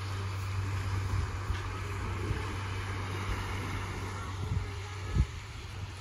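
Wind buffeting the microphone, with a steady low rumble and a few low thumps, the loudest about five seconds in, over a constant hiss of gentle surf on the shore.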